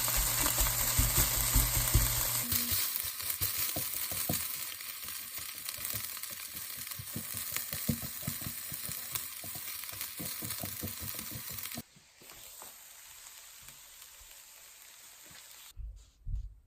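Food sizzling in a hot pan while being stirred, with many quick taps and scrapes of a spatula against the pan. A low hum sounds for the first couple of seconds; about twelve seconds in the sizzling drops off sharply to a faint hiss, and a few soft knocks come near the end.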